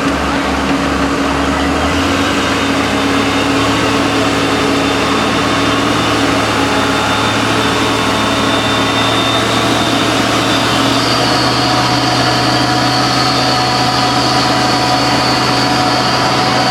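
Heavy truck engine running steadily, its low note shifting up a little about two seconds in.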